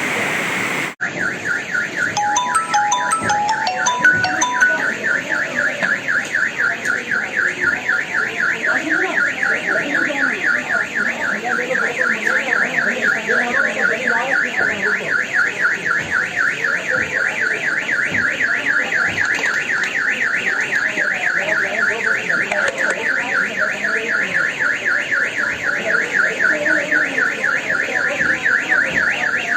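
An electronic alarm beeping in a fast, steady pulse that goes on without a break, with a few short separate tones near the start.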